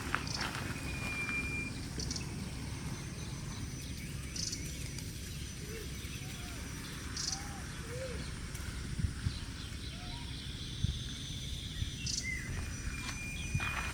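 Outdoor ambience: a steady low rumble with a few short, soft chirping calls in the middle, scattered high ticks and occasional light knocks.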